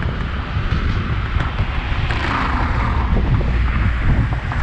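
Wind buffeting the microphone in an uneven low rumble over a broad hiss that swells briefly about two seconds in.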